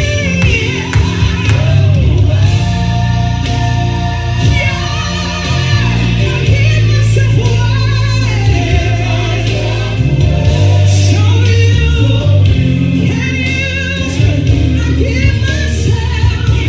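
Gospel worship singing with a live church band: voices held and wavering over sustained bass notes and keyboard chords, with occasional cymbal strokes.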